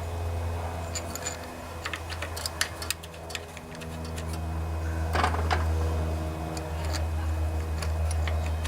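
Light metallic clicks and taps as a small-engine carburetor is handled and worked onto its throttle linkage, with a short scrape about five seconds in, over a steady low hum.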